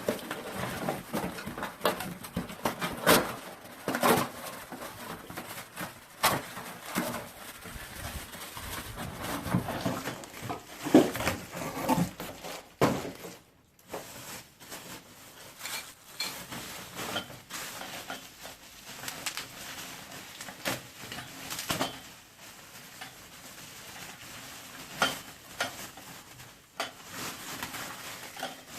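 Hands-on handling of a twin 400-watt construction floodlight and its packaging: irregular clicks, knocks and clinks of metal and plastic parts with some rustling, and a brief pause about halfway.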